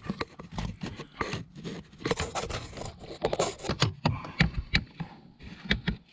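Irregular small clicks, knocks and scraping from handling parts and the camera up under the dashboard by the brake pedal, growing sparse near the end.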